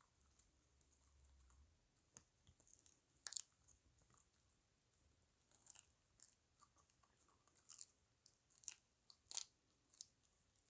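A puppy chewing a dried chicken foot: faint, irregular crunches, the sharpest about three and a half seconds and nine seconds in.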